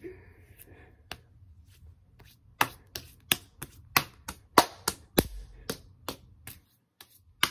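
A quick, irregular run of about a dozen sharp taps and knocks close to the microphone, starting a couple of seconds in and stopping shortly before the end.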